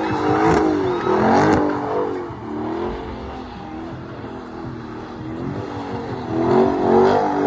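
Dodge Challenger's engine revving up and down while the car spins donuts with its rear tyres smoking. The engine pitch rises and falls in repeated waves, loudest near the start and again near the end.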